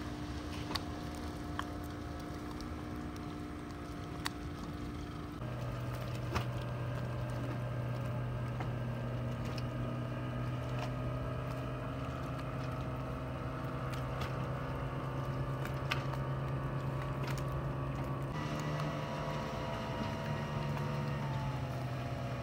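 Outboard motors of passenger speedboats running at speed, a steady engine drone. The drone changes pitch abruptly twice, and its pitch drifts slowly down near the end.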